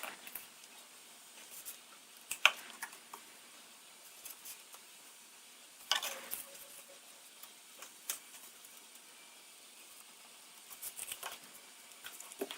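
A few scattered light clicks and short scrapes of hand work, several seconds apart, over a quiet background.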